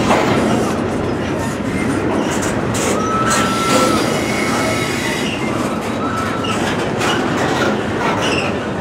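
Freight cars of a CSX train rolling past: a steady rumble of steel wheels on rail, with a few brief high-pitched wheel squeals, the clearest a little over three seconds in. The squeal is taken by the onlooker for a wheel that needs oil.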